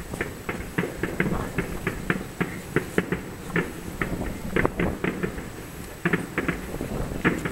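Distant fireworks display: a quick, irregular string of sharp pops and bangs from bursting shells, several a second.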